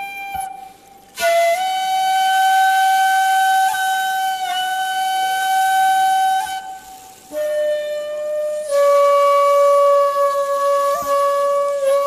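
Shakuhachi playing long, slowly held notes with an airy, breathy tone. It plays one long note, a short break, then two lower held notes, the last one the loudest.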